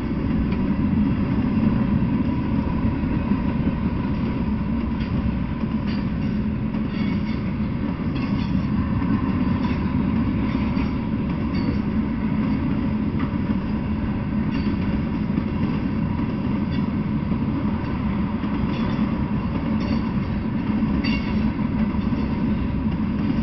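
Freight train of covered hopper cars and tank cars rolling past on the rails: a steady rumble of wheels on track, with a click now and then from the wheels.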